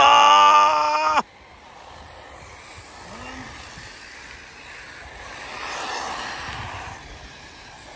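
A loud, steady pitched tone lasting just over a second that cuts off sharply. It is followed by the faint running noise of ARRMA Typhon 6S RC buggies on a dirt track, which swells briefly about six seconds in.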